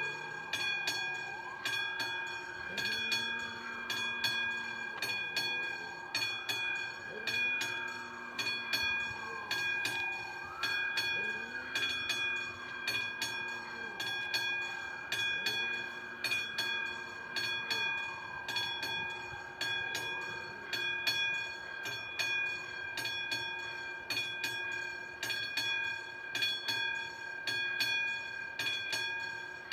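Railway level-crossing warning signal ringing with rapid, even strikes. Over the first twenty seconds or so, a whine sweeps down and back up about every four seconds, then stops.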